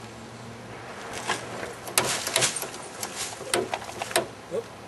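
Irregular clicks and knocks of a plastic soda bottle being handled and fitted onto the metal fitting of a hand-pump pressure rig, with a short squeak near the end.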